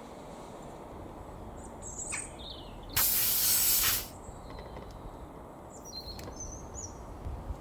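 A sudden loud hiss lasting about a second, starting and stopping sharply, with birds chirping briefly before and after it.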